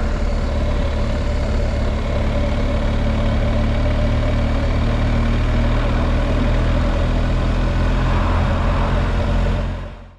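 BMW R1250GS Adventure's boxer-twin engine running steadily at about 60 km/h, heard from the rider's seat under steady wind and road noise. The sound fades out near the end.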